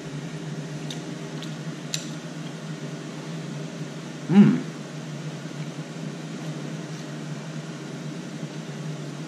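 Steady low hum of a running household appliance, with a few faint clicks in the first two seconds and a single appreciative "mmm" while tasting food about four seconds in.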